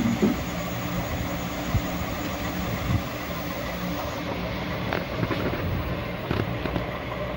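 A steady low mechanical hum, with a few light knocks.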